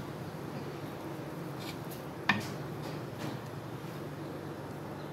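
Wooden spoon gently turning cooked biryani rice in a metal pot: soft shuffling of rice, with one sharp knock of the spoon against the pot a little over two seconds in.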